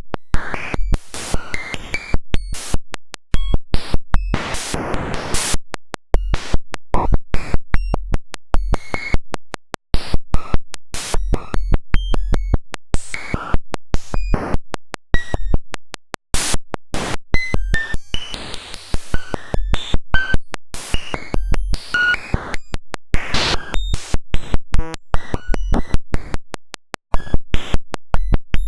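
Harsh, glitchy digital noise made by writing a cellular automaton's population count straight out as a waveform: a dense run of clicks and hiss with short high beeps and buzzing stretches, changing character every few seconds as the rule changes.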